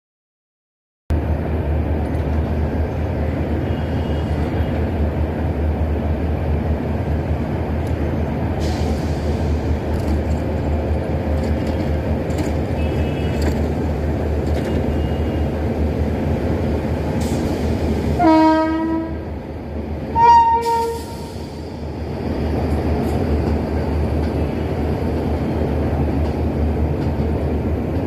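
A passenger train rolls past with a steady rumble of coach wheels on the rails, starting about a second in. About 18 seconds in, the air horn of the WAP-5 electric locomotive gives two short blasts about two seconds apart.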